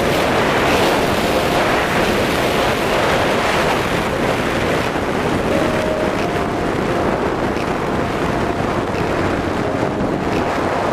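Steady wind rush buffeting the helmet-mounted microphone as a Triumph Tiger 800 XCx rides along a dirt road, with the bike's three-cylinder engine running underneath.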